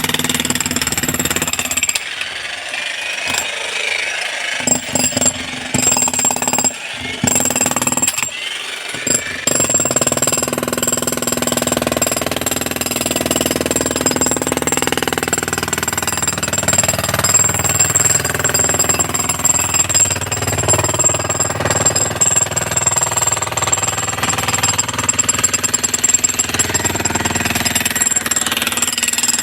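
Electric chipping hammer (demolition breaker) hammering into brick and concrete, a loud continuous rattle. It stops and restarts several times in the first ten seconds or so, then runs without a break.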